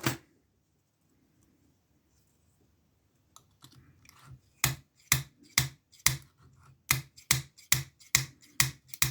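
Homemade lockpick gun snapping its needle up against the pin stacks of a Ruko lock cylinder: about ten sharp clicks, a little over two a second, starting about four and a half seconds in.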